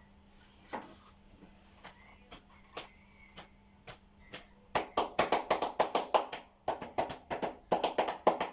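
Rapid hand strikes on a person's back, percussive massage: a few scattered light taps, then from about five seconds in a fast run of sharp slaps, about seven a second, with a short break near seven seconds.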